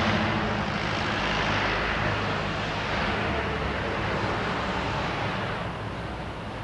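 Street traffic noise: a motor vehicle's engine running close by, with a steady low hum under a broad rush of noise that fades away near the end.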